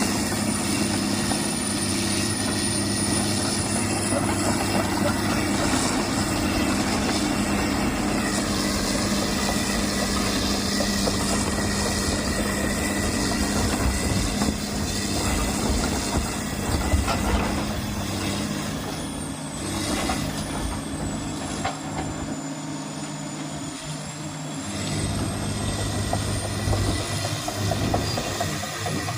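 Komatsu PC300-8 excavator's six-cylinder diesel engine running steadily. A little after halfway the engine note changes, and a high thin whine dips and rises in pitch for several seconds.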